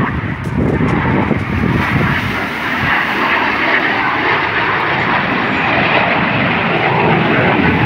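BAE Hawk T1 jets passing low with a steady jet engine noise that builds from about two seconds in and then holds, with wind and breaking surf underneath.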